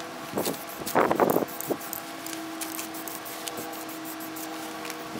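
Newspaper masking taped over a car's tailgate rustling and crinkling in short bursts as it is pressed down by hand, loudest about a second in, over a steady low hum.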